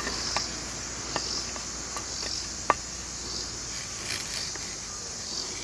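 Steady chorus of insects, crickets chirring high and continuously, with a few scattered sharp ticks, the loudest about two and a half seconds in.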